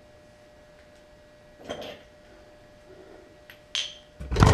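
Two light metal-on-metal clinks of hand tools on the car's front suspension, then near the end a loud power tool starts up, running in a rapid buzzing rattle.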